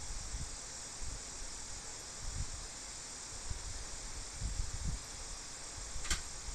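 Small parts being handled while fitting a fuel transfer tube to a carburetor: soft bumps and one sharp click about six seconds in, over a steady high hiss.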